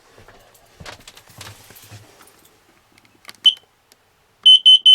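Kidde carbon monoxide alarm beeping: one loud, high-pitched beep about three and a half seconds in, then a quick run of four beeps near the end, after some rustling and a knock. The alarm is sensing carbon monoxide, which the owner puts down to exhaust fumes leaking from the exhaust manifold gaskets.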